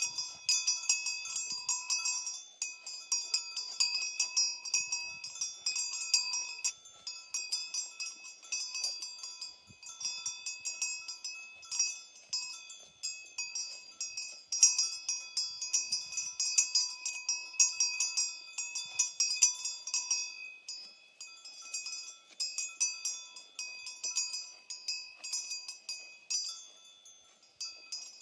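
Bells worn by cows clanking and jangling irregularly and almost without pause as the animals move, with a brief lull near the end.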